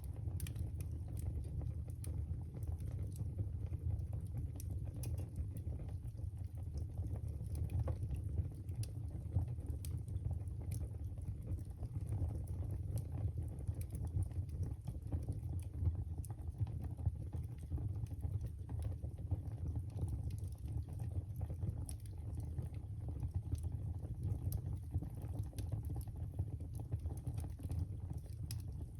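Wood fire burning in a fireplace: a steady low rumble of flames with frequent small, irregular crackles and pops throughout.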